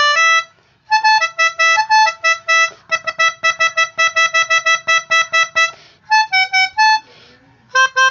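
Basuri telolet horn playing a tune in its pianika (melodica) voice: short reedy notes in phrases with brief pauses, and a quick run of rapidly repeated notes through the middle.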